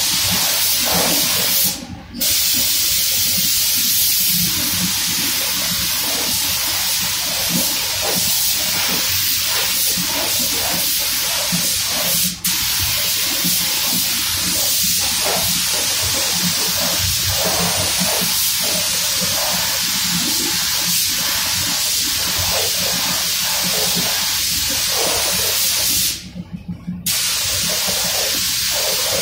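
Compressed-air paint spray gun hissing steadily as clear coat is sprayed onto car body panels. The hiss stops briefly about two seconds in, for an instant midway, and for about a second near the end, then starts again.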